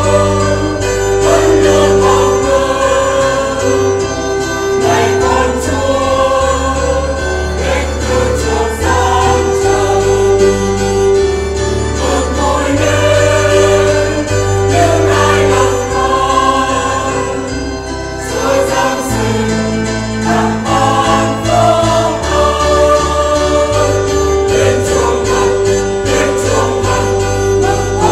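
Church choir singing a Vietnamese Christmas hymn over instrumental accompaniment, with a bass line moving in steps every second or two.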